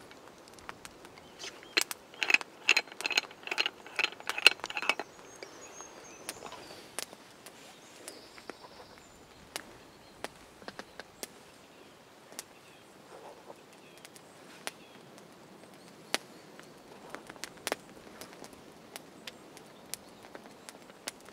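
Small wood fire crackling with scattered sharp pops, and small metal tins clicking and rattling as they are handled; the tins ring in a quick run of clicks, several a second, about two to five seconds in.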